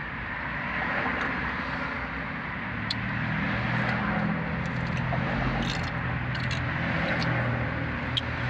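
Steady car cabin noise from inside a car: engine and road hum with a low drone that swells a little mid-way, and a few faint clicks.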